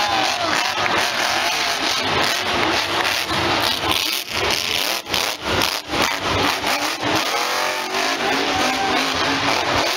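Grave Digger monster truck's engine revving in repeated surges, with brief dips in level about four to six seconds in.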